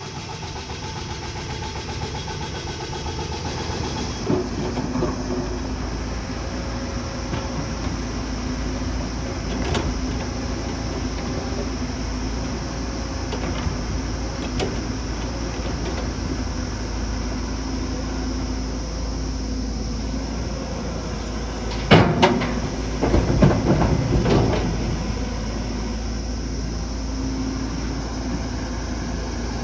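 Diesel engine of heavy earthmoving machinery running steadily, with occasional clanks and knocks. The loudest is a sharp clank about two-thirds of the way in, followed by a short cluster of knocks.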